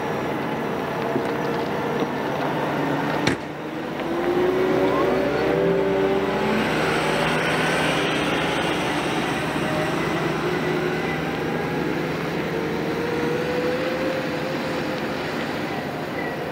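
Caterpillar articulated dump truck's diesel engine running as the loaded truck drives past, its note gliding up and down as engine speed changes, loudest from about four to eight seconds in. A single sharp click about three seconds in.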